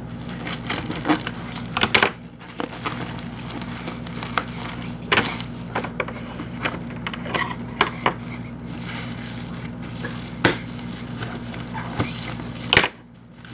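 Scattered knocks, crackles and scrapes of a cardboard parcel being handled and worked open, over a steady low hum.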